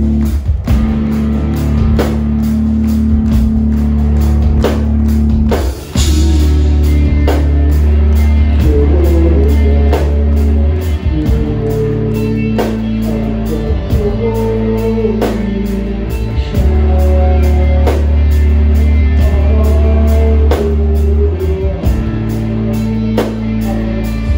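Post-hardcore band playing live and loud: electric guitar, bass and a steady drum beat. After a short break in the sound, a singer's vocal comes in about six seconds in and carries on over the band, heard from the crowd.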